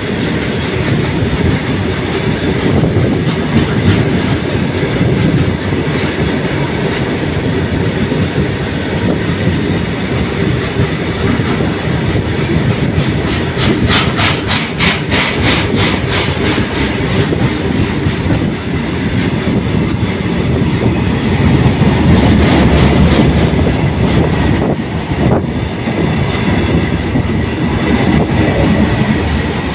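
Freight train wagons rolling past at speed, a steady heavy rumble of wheels on rail, with a quick run of clickety-clack over rail joints about halfway through.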